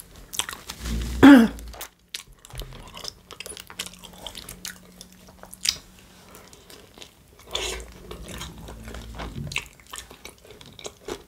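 Close-miked biting and chewing of a soft chicken shawarma in flatbread, with wet mouth sounds and small clicks throughout. A short, loud vocal sound comes about a second in.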